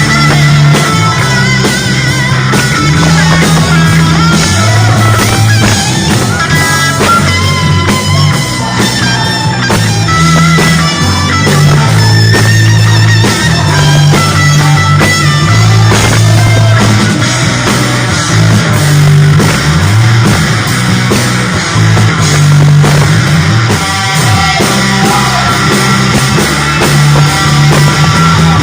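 Loud rock-style music with electric guitar, bass and drums playing without a break, the bass notes changing every second or two.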